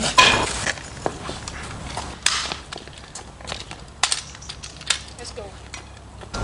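Scuffle sounds: scattered sharp knocks and clatters, with a louder burst, like a shout, just after the start and another about two seconds in.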